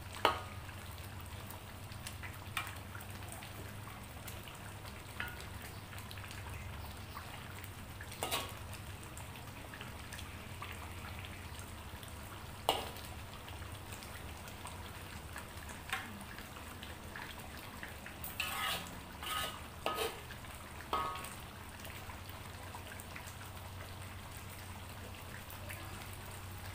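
Thick red chilli sauce with chicken simmering and sizzling in an aluminium wok, with a steady low hum underneath. A spatula knocks and scrapes against the wok now and then, with a quick run of knocks about three-quarters of the way through.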